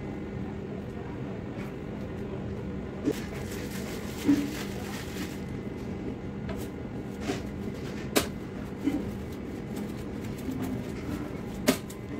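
Steady background hum of a workroom, with several sharp clicks and knocks scattered through it.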